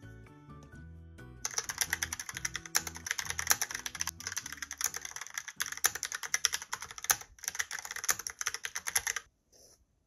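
Fast typing on a Logitech POP Keys mechanical keyboard: a dense, rapid run of key clacks that begins about a second and a half in and stops shortly before the end, with a last couple of key presses after it. Soft background music plays under the start.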